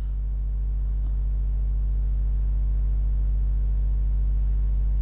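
Steady low electrical hum, mains hum in the recording chain, with a stack of fainter steady overtones above it.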